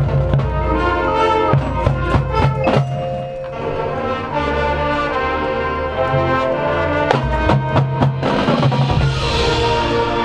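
Marching band playing: brass sustaining chords over a bass line, with drumline hits throughout and a cymbal swell near the end.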